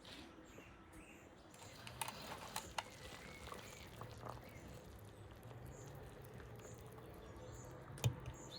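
A few scattered sharp clicks or taps, a cluster about two seconds in and a single louder one near the end, with faint bird chirps in the background.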